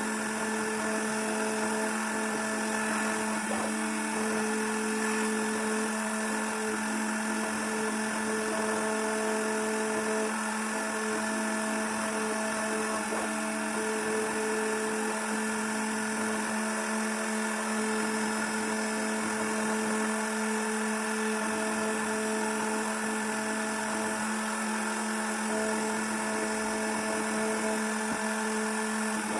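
Small CNC router spindle running steadily at high speed while it machines a copper-clad PCB, a constant whine over a hiss of cutting.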